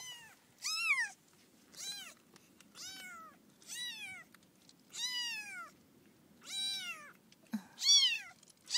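A young kitten mewing over and over, about eight high-pitched cries roughly a second apart, each rising then falling in pitch.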